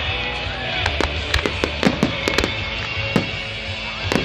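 Fireworks display: aerial shells bursting with many sharp, irregularly spaced bangs, with music playing underneath.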